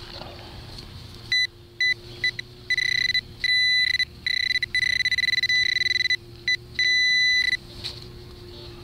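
Garrett Pro-Pointer pinpointer probing a dug hole, giving a steady high beep that cuts in and out as its tip passes over a coin in the soil. The beeping starts about a second and a half in and stops near the end.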